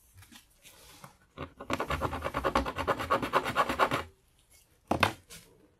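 A metal hand file scraping quickly back and forth over a small metal piece from a circuit breaker, a dense run of rapid strokes lasting about two and a half seconds, filing it to see whether it is copper. A single sharp knock follows near the end.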